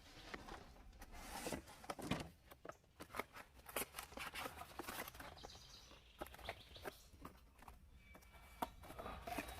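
Cardboard packaging and plastic-bagged parts being rustled and handled while a box is unpacked: a steady run of irregular crinkles, scrapes and small clicks.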